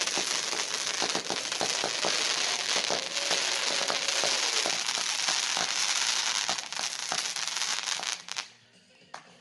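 Firework batteries going off: a dense, continuous crackle studded with many sharp bangs, which stops abruptly about eight seconds in, leaving a few scattered pops.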